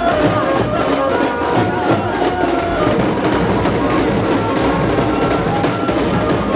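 Loud festive Indian procession music: a fast, steady drumbeat under a sustained melody.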